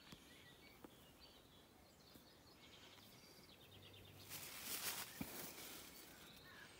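Near silence: faint outdoor ambience with a few soft bird chirps. About four seconds in, a brief rustle as hedge leaves brush past the phone.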